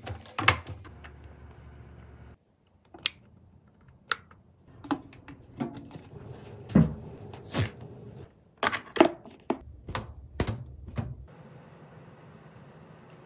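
Handling noises from kitchen appliances: the lid of an electric rice cooker clicking shut, then a string of sharp plastic clicks, clacks and knocks, about a dozen in all, spaced irregularly over low room tone.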